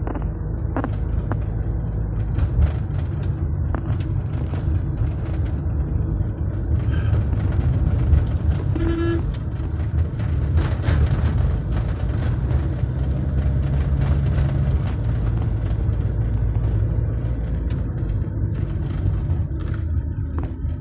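Steady low rumble of vehicle engines in road traffic, with one short car horn toot about nine seconds in.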